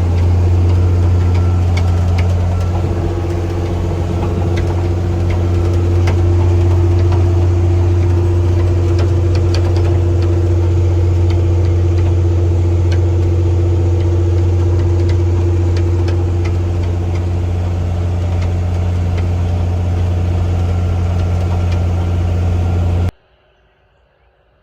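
John Deere 4640 tractor's six-cylinder diesel engine running steadily under load with a deep drone, with faint clicks and rattles over it. It cuts off suddenly near the end.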